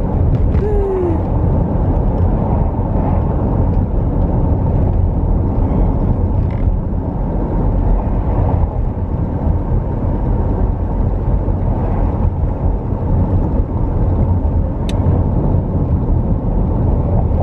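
Steady road and engine noise inside a moving car's cabin, a low rumble. A single sharp click sounds near the end.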